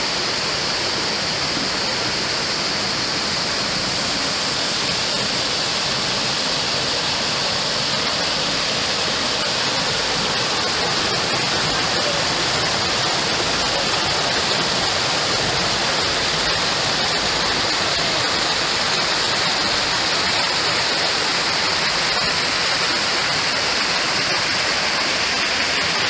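Rocky stream rushing and splashing over boulders in small cascades, a steady, even sound of running water.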